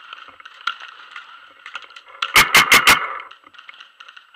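Paintball marker firing four quick semi-automatic shots about half a second apart in total, loud and close to the microphone, about two thirds of the way through. Faint distant pops from other markers around it.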